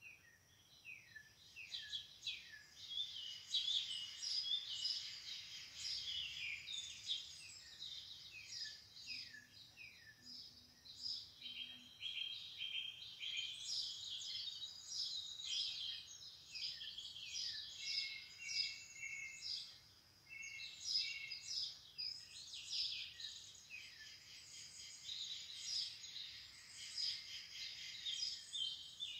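Songbirds singing: a dense, continuous chorus of quick falling chirps and trills, with a faint steady high note underneath.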